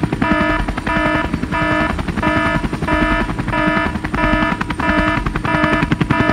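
Electronic alarm-like tone pulsing about three times every two seconds over a dense, low, rumbling clatter.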